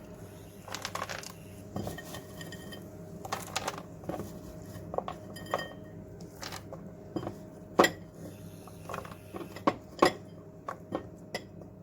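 A spoon knocking and scraping against a cooking pan in irregular clinks, as peas are tipped in and stirred through frying chicken. The louder knocks come about eight and ten seconds in.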